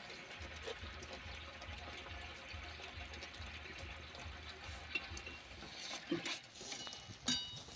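Mango pickle in thick sugar-and-jaggery syrup bubbling and crackling steadily in a metal pan, at the boiling-down stage when the syrup has thickened. A few short knocks of the metal spatula against the pan come near the end.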